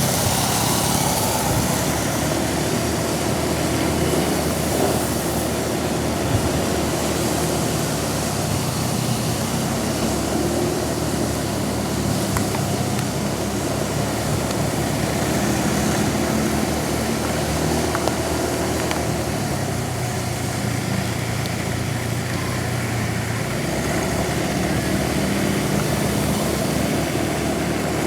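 Motor vehicle engine running on the road, its pitch drifting slowly up and down, over a steady hiss of heavy rain and a wet road.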